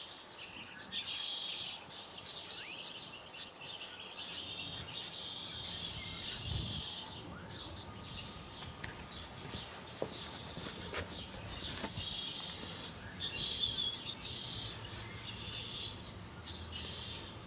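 Small birds chirping and singing in short repeated phrases, with a few sharp clicks around the middle and a faint low rumble underneath.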